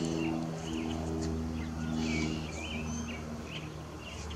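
Several birds chirping in short, quick calls, over a steady low hum.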